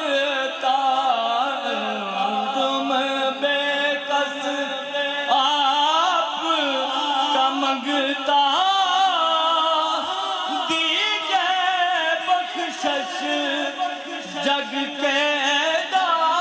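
A man's voice singing a naat, a devotional poem in praise of the Prophet, without instruments and amplified through a microphone, in long melismatic phrases that glide and ornament the melody.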